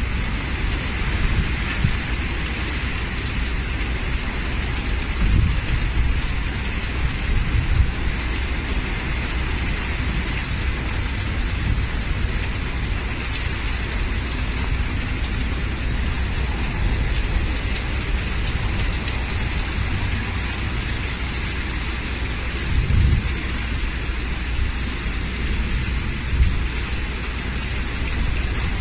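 Typhoon storm: a steady hiss of intense rain under strong wind, with several low rumbling gusts, the strongest about 23 seconds in.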